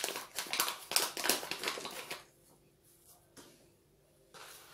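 Paper bag of sugar being opened and handled, crinkling and rustling for about two seconds, then going quiet before a short rustle near the end.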